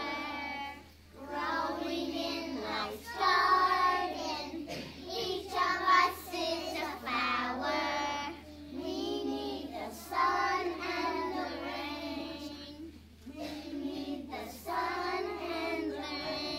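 A group of preschool children singing a song together, in phrases separated by short breaks.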